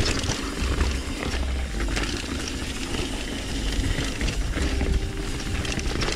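Trek Remedy 9.7 full-suspension mountain bike descending a rocky dirt trail: tyres crunching over rock and dirt, with the chain and frame rattling in many small clicks. Wind buffets the helmet-mounted camera's microphone in low rumbles that come and go.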